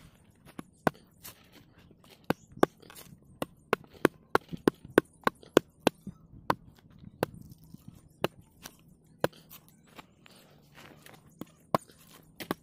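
A blade chopping into the husk of a yellow tender coconut in a run of sharp strikes, about three a second through the middle of the stretch, then slower, scattered strikes.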